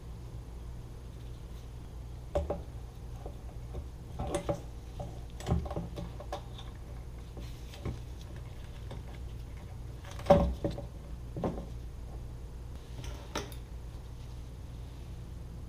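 Scattered clicks and knocks of a motorcycle fuel pump assembly being handled and fitted into its fuel tank opening. The loudest knock comes about ten seconds in, over a steady low hum.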